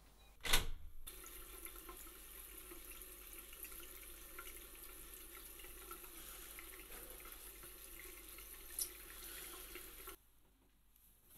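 A sharp knock, then a water tap running steadily into a sink for about nine seconds, cutting off suddenly near the end.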